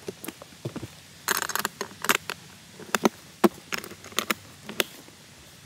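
Hard-shell aluminium-framed carry case being shut: a short rustle as the lid comes down, then a series of sharp metallic clicks and knocks as the toggle latches on the front are snapped closed.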